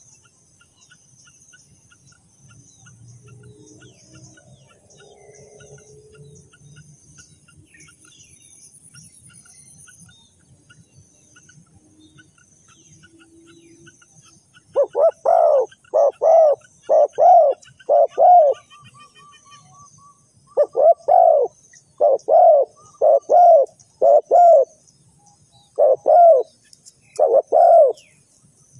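Spotted dove cooing: loud, repeated low coos in phrases of four or five notes, starting about halfway through after a stretch of quiet background.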